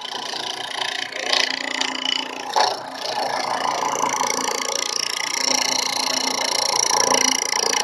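Washing-machine motor of a small homemade lathe running steadily, a whine of several steady tones, with two brief knocks early in the run.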